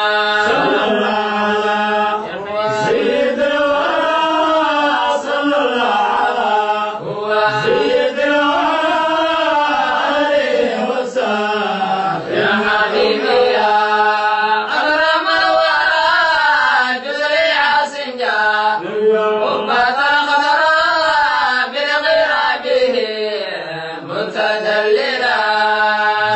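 Men's voices chanting a Somali qasiido, a devotional Islamic poem, in long melodic phrases whose pitch rises and falls, over a steady low hum.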